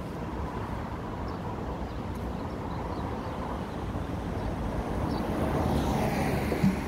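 Street traffic: a steady road rumble, with a vehicle passing and growing louder about five seconds in, and a brief thump near the end.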